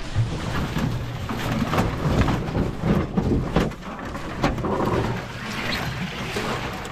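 Footsteps crunching and rustling through dry leaves, twigs and brush, irregular and uneven, with branches scraping past.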